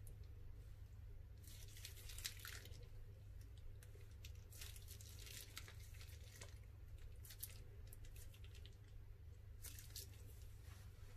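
Plastic piping bags being squeezed and crinkled in the hands as thick coloured paint is pressed out of their tips, in about four short bursts. A faint steady low hum sits underneath.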